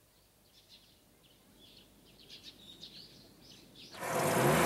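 Faint birds chirping, then about four seconds in a car engine comes in loudly with a rising note.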